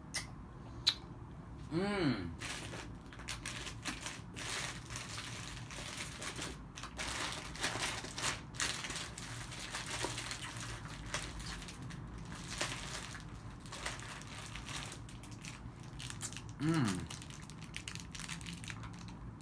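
Close-up sounds of someone eating hard candy: crunching and clicking in the mouth mixed with crinkling of a plastic candy wrapper. Two short falling hums of the voice come about two seconds in and near the end.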